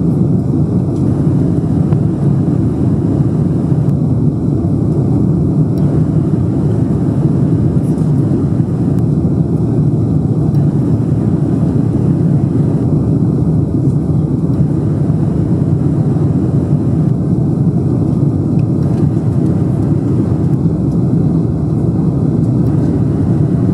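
Steady, loud noise of a Boeing 747-400's four jet engines during takeoff, heavy in the low range and unchanging in level.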